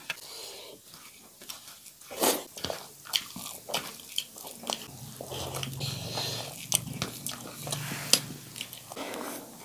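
Bare hands squishing and kneading cooked rice with egg curry gravy on steel plates: irregular wet squelches with sharp clicks of fingers and food against the metal, the loudest about two seconds in and near the end.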